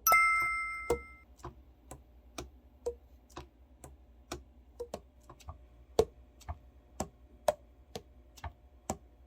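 A brief bright metallic ring at the start, then steady, even ticking at about two ticks a second, like a clock.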